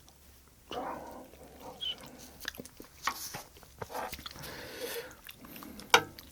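Close-miked eating: irregular chewing and wet mouth smacks of a large mouthful of braised kimchi and rice, with one sharp click near the end.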